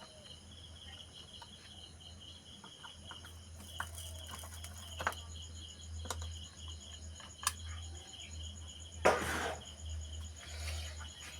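Crickets chirping steadily over a low hum, with scattered small clicks and taps; a louder rustling scrape comes about nine seconds in.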